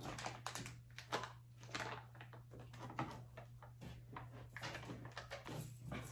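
Scattered light knocks, clicks and rustles of things being handled, over a steady low hum.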